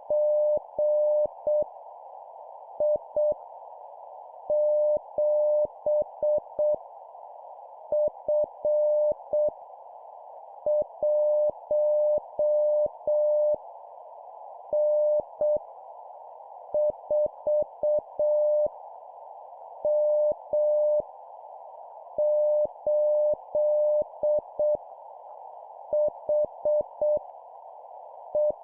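Morse code (CW) practice tone: a single steady beep keyed on and off in dots and dashes, sending random letters and numbers at 7 words per minute. The characters come in clusters separated by pauses of about a second, over a constant hiss.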